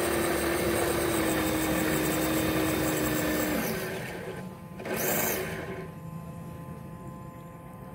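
Motor of a homemade RC boat running at a steady high speed with a steady hum, then easing off about three and a half seconds in. A brief rush of noise comes about five seconds in, and the motor runs on more quietly.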